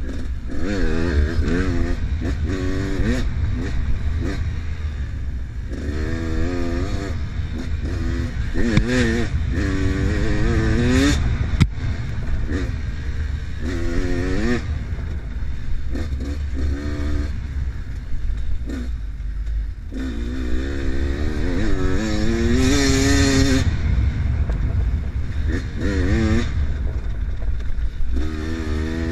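Enduro dirt bike engine revving up and falling back again and again as the rider opens and closes the throttle on a rough dirt trail, over a constant low rumble. A single sharp knock comes about halfway through.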